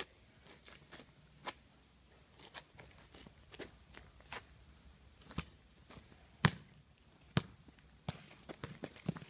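Football being kicked and bouncing: irregular sharp thuds about a second apart, the loudest about six and a half seconds in, and a quicker run of them near the end.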